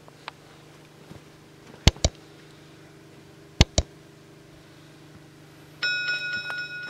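Subscribe-button animation sound effects: two quick double mouse clicks, then a bright ringing bell chime about six seconds in that fades over about two seconds. A faint steady low hum runs underneath.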